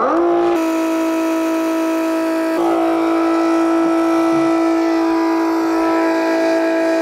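Milwaukee cordless battery-powered transfer pump switched on with a click, its motor spinning up within a fraction of a second into a steady whine that runs on, with a slight shift in pitch about two and a half seconds in. It is starting to pump rainwater from the barrels into the garden hose.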